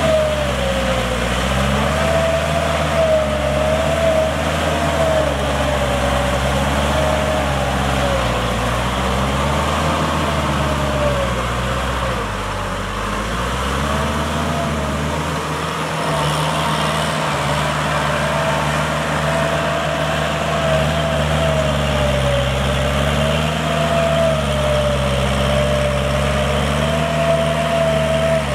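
Kubota L5018 SP tractor's diesel engine running under load as it pulls a rotary tiller through a flooded paddy. Its engine speed rises and falls slowly, with a brief drop about twelve seconds in.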